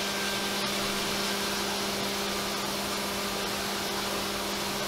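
CNC mill spindle running steadily while a chamfer tool cuts an aluminium part under a hiss of flood coolant spray, with a little bit of a chirp as it goes around the inner radius.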